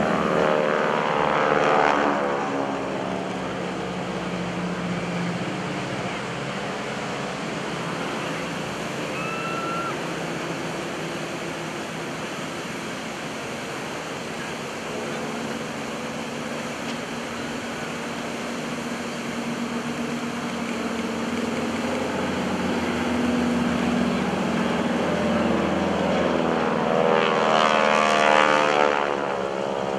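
North American T-6 Texan's nine-cylinder Pratt & Whitney R-1340 Wasp radial engine and propeller droning through low flybys. It is loudest in the first two seconds and again near the end as a plane passes close, with a swirling, phasing sweep each time. Between the passes it drops to a steady, quieter drone.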